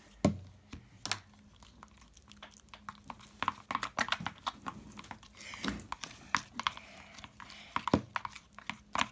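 Spoon stirring a bowl of clear school glue with colouring and glitter: an irregular run of small clicks and taps, sparse at first and busier from about three seconds in.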